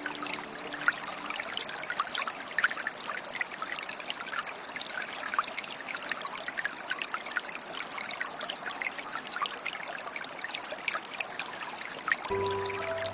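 A small stream trickling and babbling: an even rush of running water scattered with many small splashes. Soft music with long held tones comes back in near the end.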